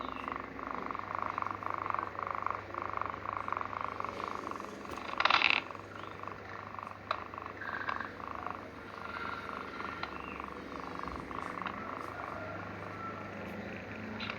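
Sleeping kitten snoring with a steady purr-like rattle, pulsing regularly. A brief, louder noise comes about five seconds in.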